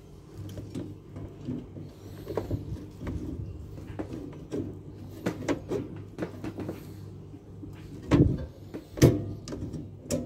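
Small metal clicks and taps as the espresso machine's boiler probe fitting is tightened by hand and tool, with two louder knocks near the end, over a steady low hum.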